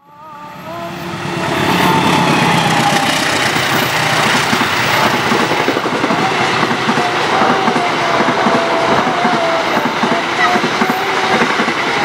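Passenger coaches running past at speed: a steady, loud rolling noise with the clatter of the wheels over the rail joints. It fades in over the first two seconds.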